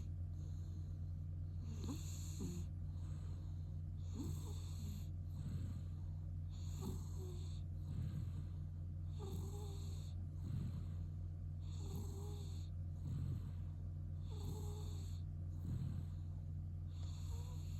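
A sleeping cat snoring, its nose congested by chronic rhinitis left after cat flu: slow, even breaths about every two and a half seconds, some carrying a short whistling note.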